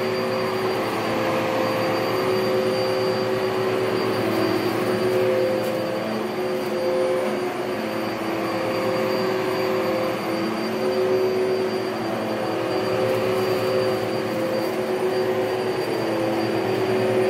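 Upright vacuum cleaner running steadily on carpet, a constant motor drone with a high whine above it. The drone wavers a little in pitch as the vacuum is pushed back and forth.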